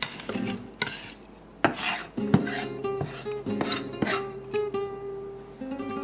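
Chef's knife blade scraping and mashing garlic into a paste on a wooden cutting board, in a series of short scraping strokes about two a second. Guitar music plays underneath.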